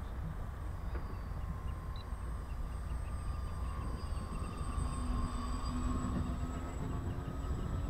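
Motors of a radio-controlled scale model Short S.23 Empire flying boat droning in a steady tone as it flies low past, growing a little louder as it comes closer, over a low rumble of wind on the microphone.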